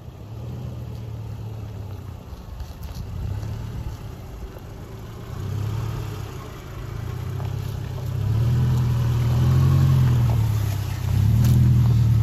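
Subaru Forester's flat-four engine pulling under load as the car climbs through deep ruts on a dirt trail, the revs rising and falling. It gets clearly louder about eight seconds in as the car nears and the throttle opens.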